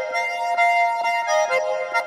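Background music: a melody of held notes sounding over chords.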